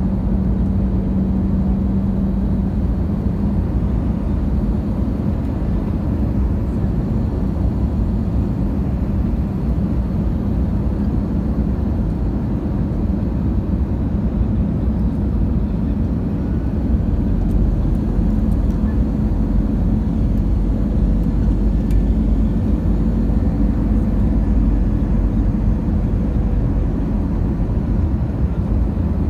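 Steady engine and airflow noise heard inside the cabin of an Airbus A320-family jet airliner on final approach: a low rumble with a steady hum, growing a little louder just past halfway.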